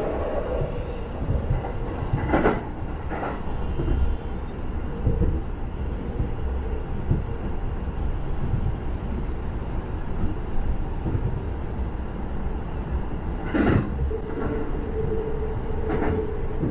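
JR Nambu Line electric commuter train heard from inside the carriage while running: a steady rumble with a few clacks of the wheels over rail joints. Near the end a steady whine sets in as the train comes into a station.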